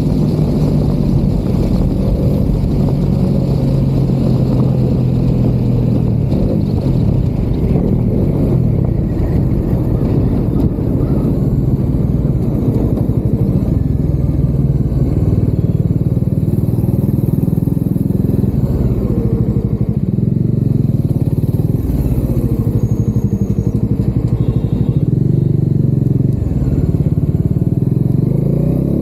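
Bajaj Dominar 400's single-cylinder engine and exhaust heard from inside the rider's helmet while riding, the engine note rising and falling with throttle and gear changes.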